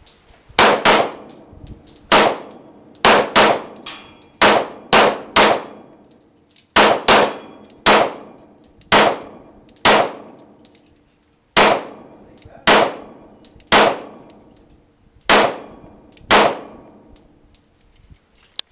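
Semi-automatic pistol firing about nineteen shots at an uneven pace, in singles, quick pairs and runs of three, each shot ringing out and fading. This is a magazine being emptied.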